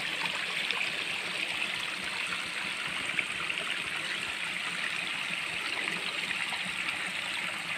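Hot spring water flowing and trickling steadily.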